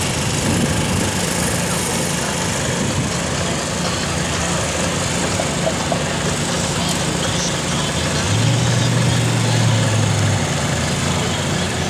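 A steady low engine hum, with a louder low hum coming in about eight seconds in and lasting about two seconds.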